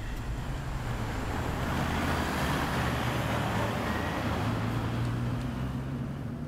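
Road traffic: a steady low car engine hum under tyre and road noise that swells in the middle and eases off, like vehicles going past.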